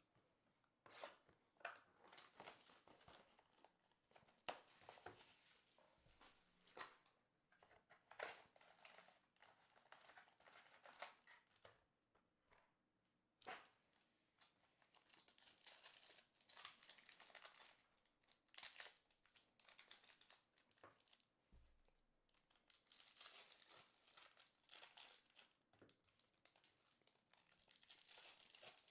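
Panini Chronicles football card packs and their wrapping being handled, crinkling in bursts and tearing open, with a few sharp clicks of the packs and box being set down.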